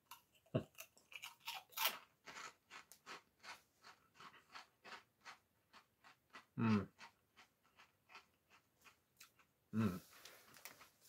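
Crunchy cheese-and-bacon Cornados corn snack being chewed with the mouth close to the microphone: a run of sharp crisp crunches, quick at first, then thinning out and getting quieter. Twice, about two-thirds of the way in and near the end, a short low hum from the eater.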